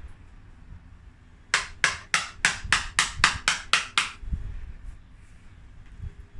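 A quick run of about ten sharp knocks, roughly four a second, from a tool being struck into wood to hollow out decayed wood in a bonsai trunk.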